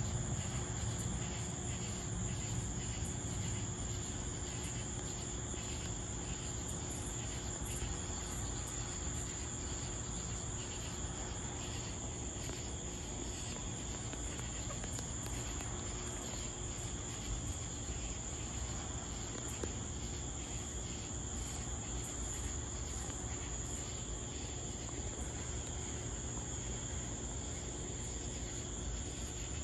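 Chorus of night insects, crickets chirping steadily with an even, pulsing rhythm, over a low steady hum.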